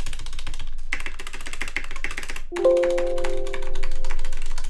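Rapid, repeated key presses on the DMK02 mechanical keyboard's stabilized keys, a fast stream of clicks with the rattle of its stock OEM stabilizers. A steady held musical tone comes in a little over halfway through and runs alongside the clicking.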